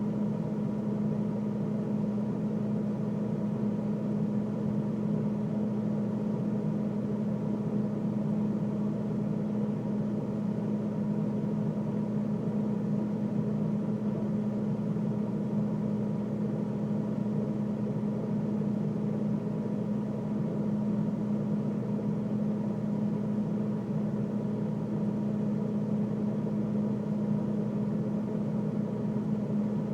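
Freezer running with a steady low mechanical hum that does not change.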